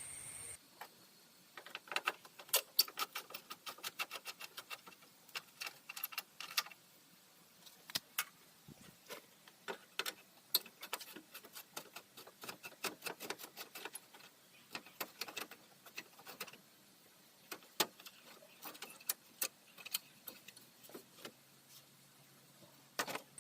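Irregular metallic clicks and light taps from hand tools and fasteners as a car's front grille is unfastened and lifted off, coming in clusters with short pauses.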